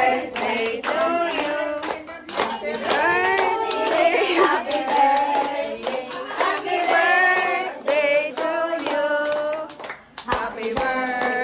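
A group of people singing together while clapping their hands along to a steady beat.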